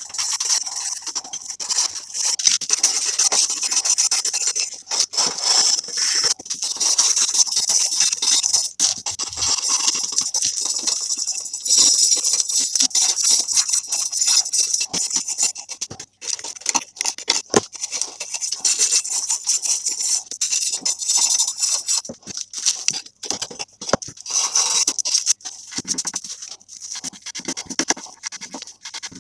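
Hand wire brush scrubbing rust and dirt off a heavily rusted steel garden-shovel blade: a high, scratchy hiss in rapid back-and-forth strokes with brief pauses.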